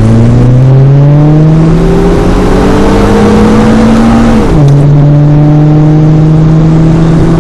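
Ferrari 2300 Abarth's engine and exhaust under acceleration: the pitch climbs steadily for about four seconds and drops sharply at an upshift midway. It then climbs again slowly in the next gear.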